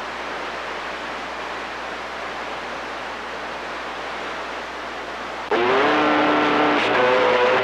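CB radio receiver hiss (open-squelch static). About five and a half seconds in, a stronger transmission keys up and the hiss jumps to a louder signal carrying steady whistling tones that begin to waver near the end.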